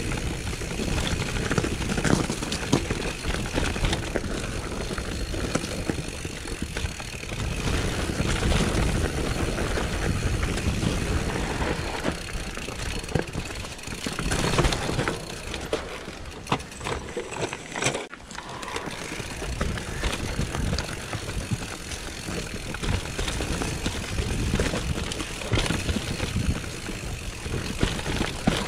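Mountain bike riding down a rough singletrack trail: an uneven noisy rush of tyres over dirt and stones, with the bike rattling over the bumps. It eases briefly about two-thirds of the way through.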